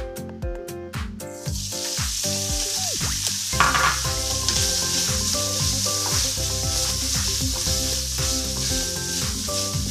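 Hot oil in a wok sizzling, then a louder burst of sizzle about three and a half seconds in as shredded adobo meat hits the oil. After that it fries steadily while being stirred with a wooden spatula, over background music.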